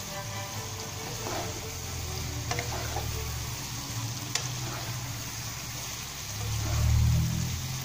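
Fried chicken pieces sizzling in sauce in a coated wok as a spatula stirs and tosses them, with a few light scrapes against the pan. A low hum swells for about a second near the end.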